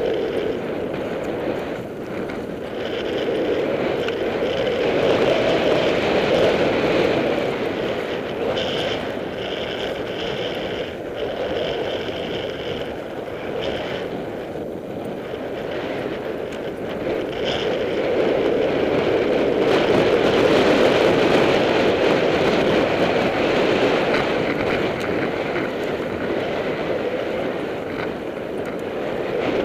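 Wind rushing over the microphone and tyre noise on loose dirt from a mountain bike riding fast downhill, swelling and easing with speed and loudest about two thirds of the way through. A faint high tone comes in for a few seconds near the middle.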